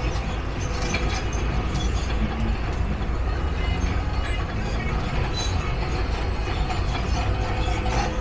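Heavy machinery working: a continuous low rumble with steady mechanical clatter and small knocks.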